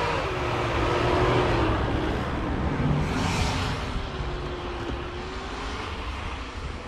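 A 4x4 pickup's engine pulling hard up a snowy track, its pitch wavering with the throttle, with a burst of hiss from the tyres churning snow about three seconds in. The sound grows fainter as the vehicle pulls away.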